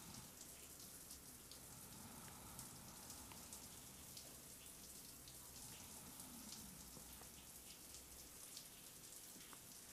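Near silence: faint room tone with a soft hiss and many tiny scattered ticks.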